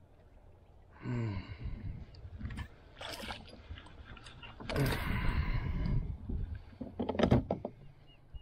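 Hooked bass splashing and thrashing at the surface beside a kayak as it is reeled in and lifted aboard. There is a loud burst of splashing about five seconds in, and a few sharp knocks shortly after.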